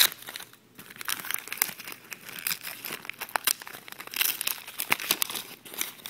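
Gift wrapping paper being torn and crumpled by hand: irregular crinkling and rustling, with a short lull about half a second in.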